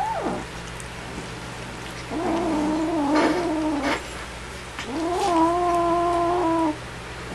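A kitten growling to guard its food: two long, steady, pitched growls of about two seconds each, the first starting about two seconds in and the second about five seconds in, after a brief cry at the very start.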